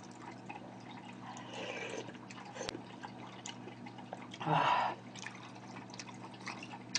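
Metal spoon scooping soup and lightly clinking against a bowl, with one short loud slurp of hot soup from the spoon about four and a half seconds in.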